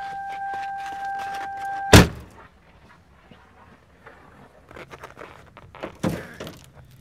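A car door slams shut with a heavy thunk about two seconds in, and a steady high tone stops with it. After that come light clattering and a second, softer thunk near the end.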